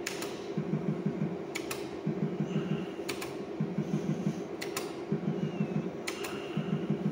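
Bar video slot machine being played spin after spin: sharp clicks of its play button about every one and a half seconds, each followed by a short pulsing electronic spin sound from the machine, over a steady hum.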